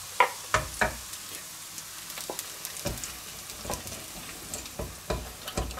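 Sliced bratwurst sizzling in a frying pan, with a few sharp knocks and scrapes as wooden spoons push the slices out of the pan into a pot of stew.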